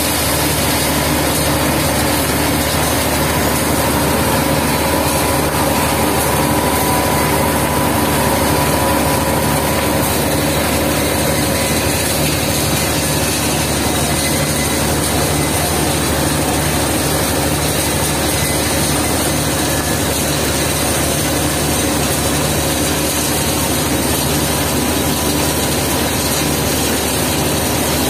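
Asphalt mixing plant machinery running: a loud, steady mechanical drone with a constant hum of electric motors and aggregate conveyors, unchanging throughout.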